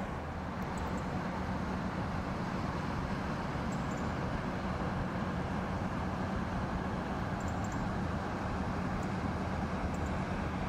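Inland motor tanker's diesel engine running steadily as the vessel passes, a low, even drone with a constant hum.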